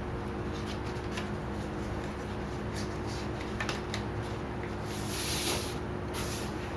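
Hands rustling and crinkling a paper-backed vinyl grill wrap on its transfer tape while nudging it into position, with a louder crinkle about five seconds in, over a steady low hum.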